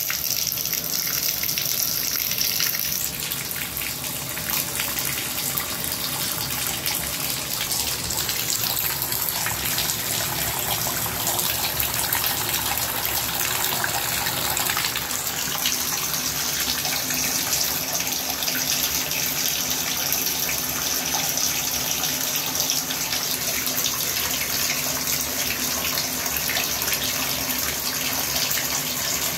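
Bathtub spout running hot water hard into the tub and down the drain, a steady rush, flushing brown sediment and debris out of the hot water line.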